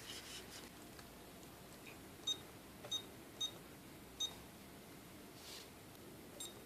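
A run of short, high electronic beeps: four in quick, slightly uneven succession about two seconds in, and a fainter one near the end, with a brief rustle at the start.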